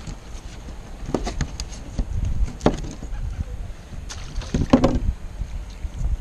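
A few scattered knocks and thuds of fish and knives against a plastic fish-cleaning table while fish are being filleted, over a steady low rumble.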